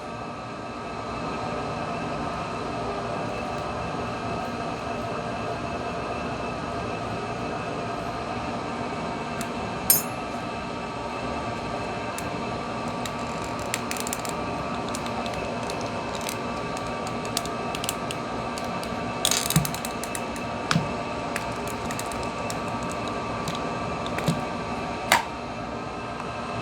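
Hot air rework gun blowing steadily, a hum with a fixed whine that starts about half a second in and stops near the end, with scattered small clicks and scrapes from the opening tools working at the phone's back cover.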